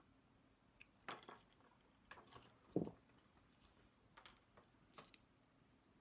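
Faint handling sounds: a few small clicks and short rustles as small side cutters trim the rip cord from a shielded CAT5e cable, with a soft knock about three seconds in.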